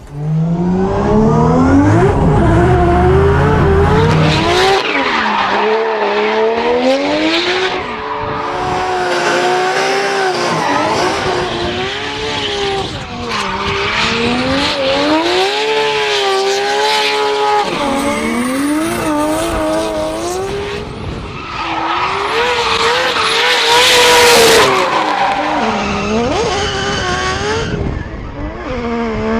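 Nissan RB26 straight-six engine of a 1000 hp BMW M3 drift car revving hard, rising and falling repeatedly through a drift, with tyres screeching as they spin.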